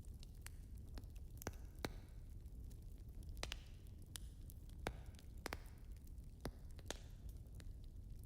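Fireplace fire burning with a steady low rumble and irregular crackles and pops of burning wood, a few pops followed by a brief hiss.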